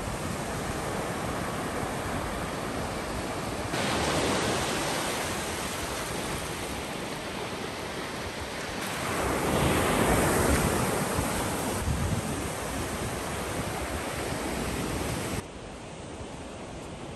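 Sea surf breaking and washing up on a sandy beach, a steady rushing wash with one wave swelling louder about ten seconds in. The level jumps up about four seconds in and drops suddenly near the end.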